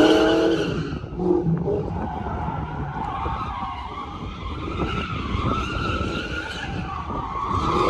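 A car doing donuts: the engine revs hard near the start, and the tires squeal on and on, wavering up and down in pitch as the car circles.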